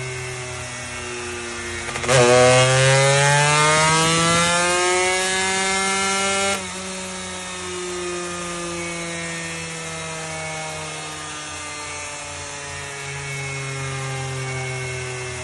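Small motorcycle engine idling, then revved sharply about two seconds in, its pitch climbing and held high for about four seconds before it drops abruptly back to idle.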